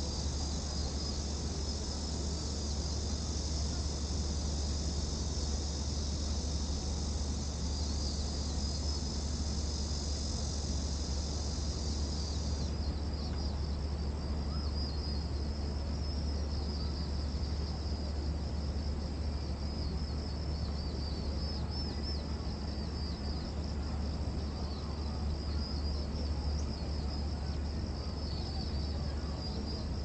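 Cicadas buzzing in a steady dense chorus; about halfway through, part of the chorus stops abruptly while the rest carries on. Under it runs a steady low rumble.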